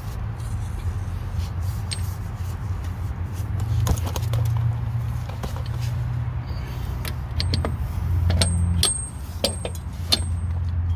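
Sharp metallic clicks and clinks of shock absorber hardware (washers, lock nut, the shock body) being handled against the underside of the car, coming more often in the second half, over a steady low vehicle rumble.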